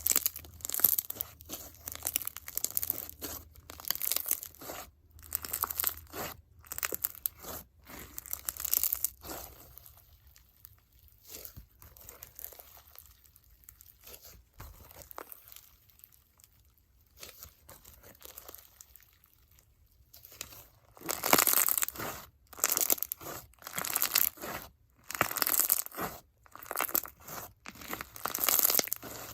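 Hands squishing and stretching an icee-jelly crunch slime packed with foam beads and bingsu beads, making repeated bursts of crackling and popping. The bursts fade for several seconds in the middle, then come back louder.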